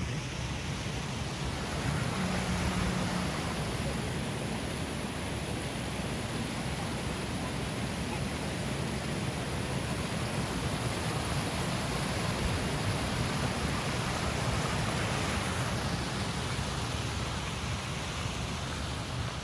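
Wind buffeting the microphone: a steady rushing noise with a fluttering rumble low down.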